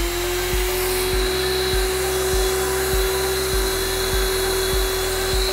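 Electric sanitizing fogger running at a steady pitch, its motor whining over a rush of air as it sprays disinfectant mist.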